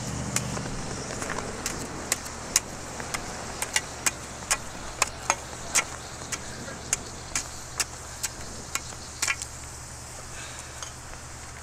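Irregular sharp metallic clicks and taps, two or three a second, as a thin metal rod pokes through extinguished titanium powder residue in a steel angle trough. The tapping stops about nine and a half seconds in, over a steady low hum.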